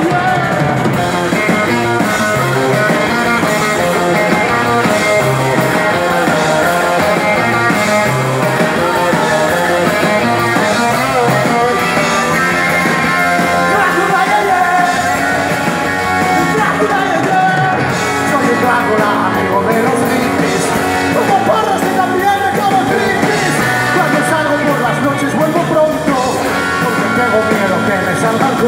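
A rock band playing live, with electric guitars, drums and a singer, loud and unbroken, recorded from within the audience.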